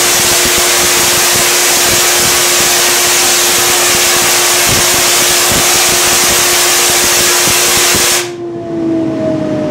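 Half-wave Tesla coil's 50-inch arc sparking between its two terminals: a loud, harsh crackling hiss with a steady hum underneath. It cuts off suddenly near the end, leaving a hum that slowly falls in pitch.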